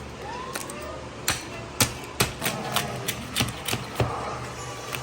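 A knife chopping crispy roast pig (lechon) on a cutting board: irregular sharp knocks, two or three a second, over faint voices.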